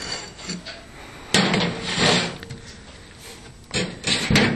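Microwave oven door and turntable being handled: a series of knocks and clunks, four louder ones spread through, as the oven is opened, loaded and shut.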